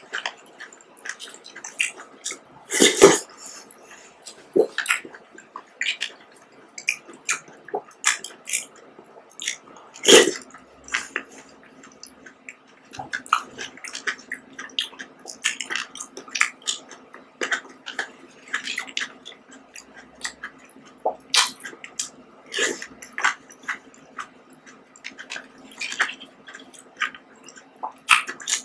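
Close-up wet eating sounds of fruit jelly with red grapes: chewing and squishing, mixed with sharp clicks and scrapes of a plastic spoon in a plastic cup. The two loudest clicks come around three seconds in and again around ten seconds in.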